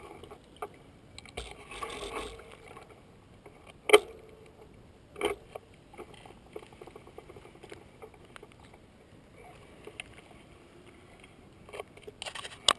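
Mountain bike coasting down an asphalt road: faint tyre and wind noise with scattered clicks and rattles from the bike, and sharp knocks about four seconds in and again just after five seconds.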